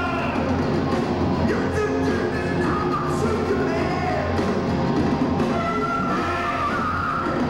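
Heavy metal band playing live: electric guitars, bass and drums with a singer, heard from the audience.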